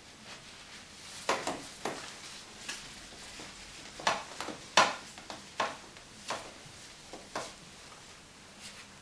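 A whiteboard being wiped clean by hand: about eight short, brushing swipes, spaced unevenly.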